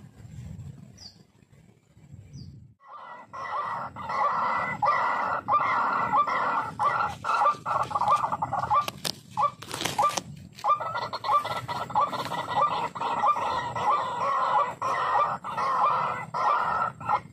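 White-breasted waterhen calling: a loud, rhythmic run of repeated harsh 'kwak' notes, two or three a second, starting about three seconds in. The calling breaks off briefly near the middle, where a single sharp knock is heard, then resumes until near the end.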